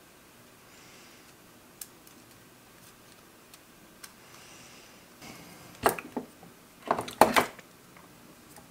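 Small hard clicks and clatter of car cassette player parts being handled during teardown: a few faint ticks, then a quick run of sharp clicks about six seconds in and another, louder, about seven seconds in.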